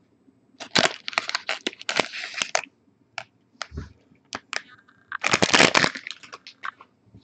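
Foil trading-card pack wrapper crinkling and crackling as it is crumpled in the hand, in two bursts of a couple of seconds each with a few single crackles between them.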